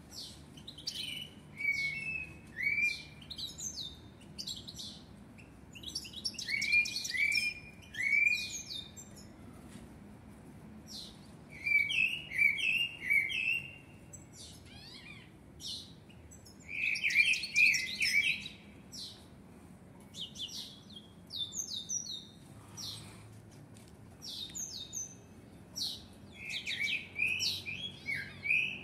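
Common blackbird singing: short phrases of whistled notes that drop in pitch, mixed with fast high twittering, with pauses of a second or two between phrases.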